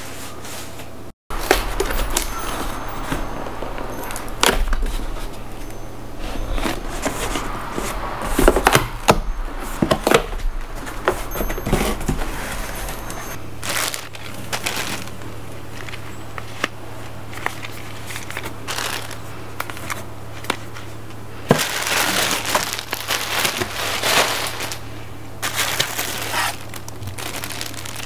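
A cardboard box being unpacked by hand: cardboard flaps knocking and scraping, and clothes in plastic bags rustling and crinkling as they are lifted out, densest in the last third.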